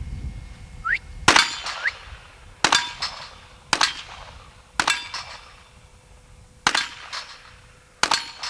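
Six shots from a .38 revolver fired one at a time, about one to two seconds apart, each with a brief ringing after it.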